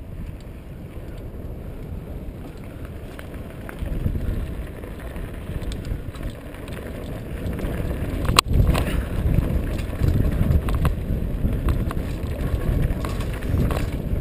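Mountain bike descending rough, rocky singletrack: wind buffeting the microphone, with tyres crunching over loose rock and the bike rattling, getting louder from about four seconds in. A single sharp clack just past the halfway point, from the bike hitting rock.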